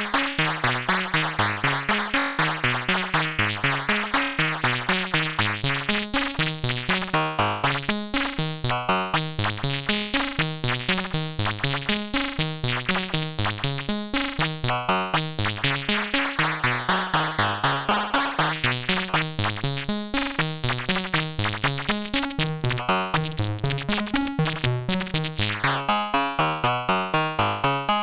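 Analog synthesizer oscillators of a 3340-based dual VCO module playing a fast repeating pattern of short pitched notes, several a second. The tone slowly brightens and darkens in broad swells, with a quick downward sweep near the end.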